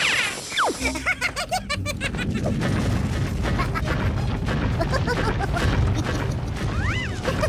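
Cartoon soundtrack of music and comic sound effects: a quick falling whistle near the start and a run of fast plinking notes, then a low rumble of a rolling boulder under the music, and a short up-and-down whistle near the end.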